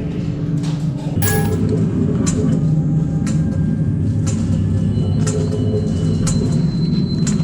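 A loud, steady low mechanical drone that grows stronger about a second in, with scattered sharp clicks and snaps over it.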